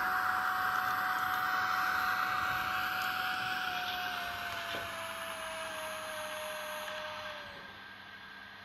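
Sound decoder of a Minitrix N-scale SNCF BB 9200 electric locomotive playing its traction-motor whine over a steady hiss of running noise. The whine falls in pitch from about halfway through and stops near the end as the locomotive slows, and the hiss fades with it.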